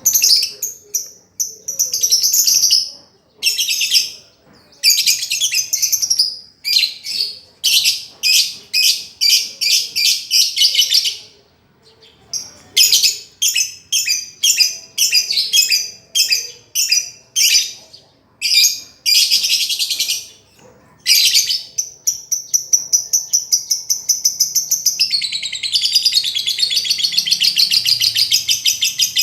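Lovebird singing: a run of short, high, rapid chattering phrases with brief pauses, then one long unbroken chattering trill over the last third.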